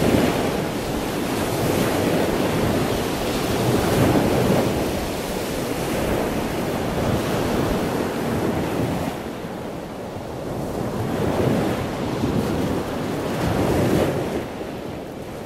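Wind buffeting the microphone over the rush of surf, swelling and easing every few seconds.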